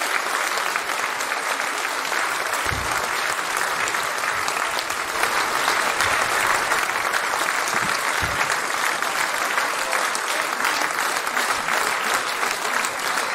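Theatre audience applauding steadily after the dance ends, a dense even clapping.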